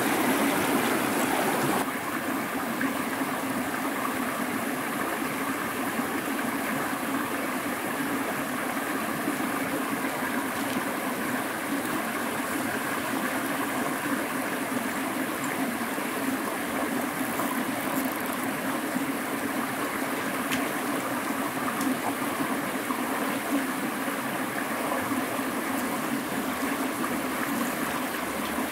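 River current flowing over stones, a steady rush of water that drops a little in loudness about two seconds in.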